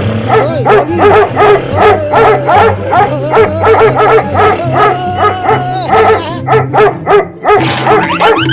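A dog barking and yelping over and over, about three barks a second, over background music with a steady repeating bass line.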